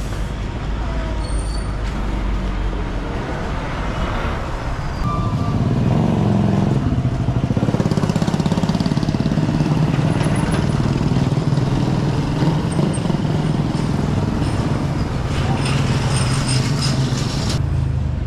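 Motorcycle and tricycle engines running as they pass close by. The engine sound grows loud about six seconds in, holds for about ten seconds, then drops away near the end, over general street noise.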